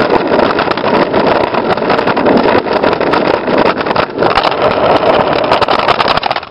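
Skateboard wheels rolling over concrete, a loud steady rumble picked up right on the board, with many small clicks and knocks throughout.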